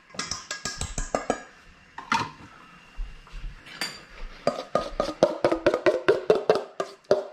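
Cutlery rattling as a spoon is taken from a kitchen drawer, then a few single clinks. From about halfway through, a metal spoon stirs a thick sauce in a stainless steel mixing bowl, clinking against its sides about five times a second, and the bowl rings a little.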